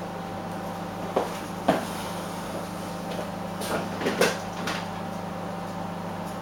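Steady hum of a microwave oven running, broken by about five short knocks and clunks, in two pairs about a second in and about four seconds in.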